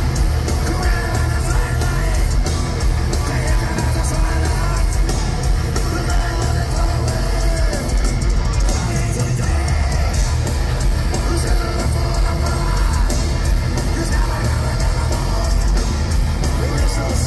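Thrash metal band playing live and loud: a singer's shouted vocals over distorted electric guitars and a drum kit.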